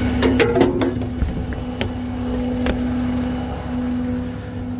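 Peterbilt rollback tow truck running with a steady hum. A quick cluster of sharp knocks and clicks comes in the first second, then two single knocks about two and three seconds in.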